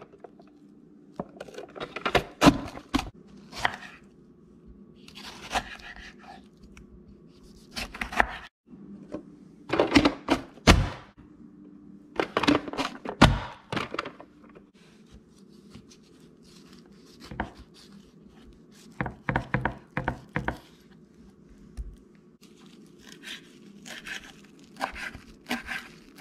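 Plastic push-down vegetable chopper being slammed shut again and again, its lid forcing chunks of onion and tomato through the grid blades with sharp thunks in separate clusters. Near the end come quicker strokes of a chef's knife chopping cilantro on a wooden cutting board.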